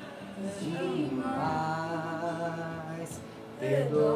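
A voice singing long held notes with music, one low note held for nearly two seconds, then a louder phrase starting near the end.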